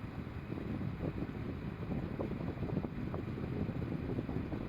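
Car air conditioning running at full blast with the engine running: a steady rush of blower air over a low engine rumble.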